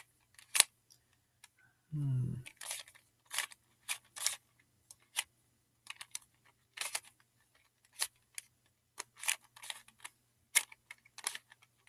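Plastic barrel cube, a 3x3-type twisty puzzle, being turned by hand: irregular sharp clicks and clacks of its layers snapping round, a couple a second. The cube is new and not yet broken in, so it turns clanky. A short hum from the solver about two seconds in.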